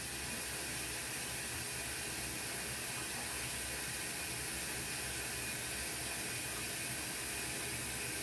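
GE washer filling with water through its inlet valve at the start of its diagnostic wash test: a steady hiss of running water, a little louder just after it begins.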